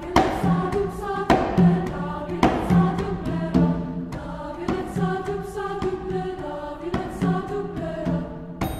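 Treble choir singing, with a struck accompaniment marking a steady beat about once a second.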